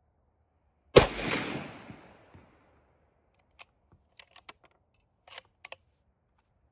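A single shot from a Ruger Model 77 bolt-action rifle in .250 Savage, its report dying away over about a second and a half. Several seconds later come a string of short metallic clicks as the bolt is worked to chamber the next round.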